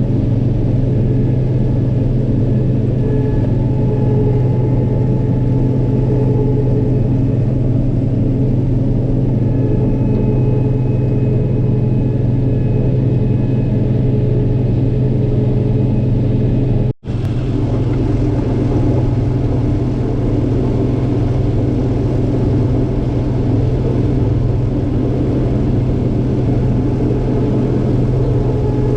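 Diesel engine of heavy farm machinery running steadily at constant speed, a deep even hum with no change in pitch. The sound cuts out for an instant about seventeen seconds in and resumes the same.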